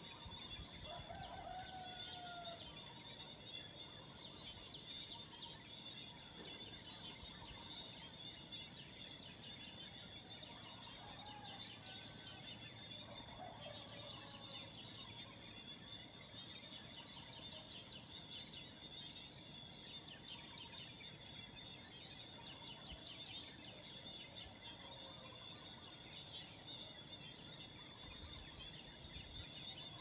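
Faint morning outdoor ambience: a steady high insect drone under clusters of rapid, high chirping that come every few seconds. A few lower bird calls sound over it, the first about a second in with a slightly falling pitch.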